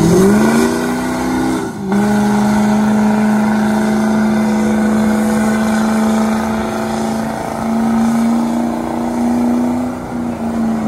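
Lifted diesel pickup doing a burnout. The engine revs up hard, dips for an instant about two seconds in, then holds a steady high-rpm note while the tires spin and smoke.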